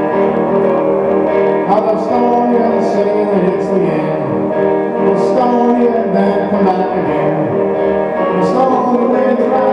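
Guitar music played live by a lone performer, notes ringing over one another.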